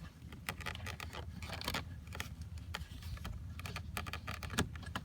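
Small plastic and metal clicks and rattles from working loose the clip that joins the door-lock rod to a car's interior door handle, with one louder click about four and a half seconds in.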